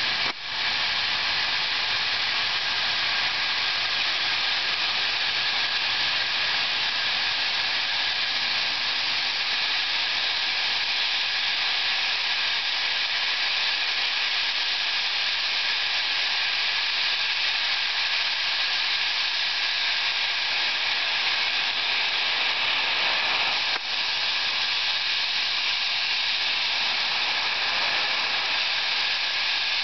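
Steady hiss of steam blowing from Southern Pacific 4449, a GS-4 class 4-8-4 steam locomotive, as it approaches.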